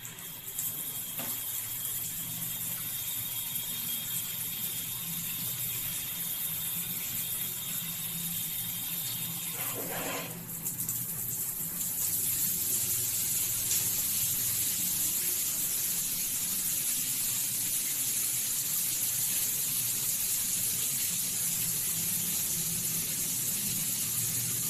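Water running steadily through a tap or valve, a constant hiss with a thin high whistle. The whistle stops about ten seconds in, and the flow grows a little louder about two seconds later.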